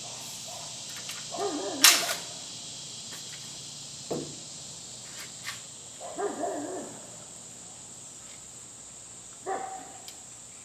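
Metal clicks and knocks from a pump shotgun's barrel and magazine tube being worked together, the sharpest click about two seconds in, while the barrel binds on the tube's washer, which the owner suspects has been torn again. A few short vocal sounds come in between the clicks.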